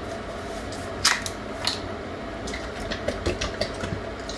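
A small plastic kefir bottle opened with a sharp click about a second in, then a few light clicks and ticks as kefir is poured into a plastic mixing bowl, over a steady low hum.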